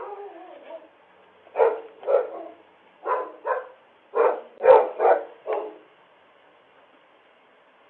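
A dog barking eight times in quick pairs after a short falling whine. The sound is thin and band-limited, as through a doorbell camera's microphone.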